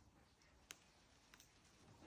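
Near silence: faint room tone with two soft clicks, the first under a second in and the second a little over half a second later.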